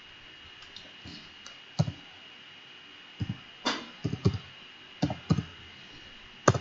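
Computer keyboard keys clicking in short irregular clusters as a command is typed, with one sharper click near the end. A faint steady high-pitched whine runs underneath.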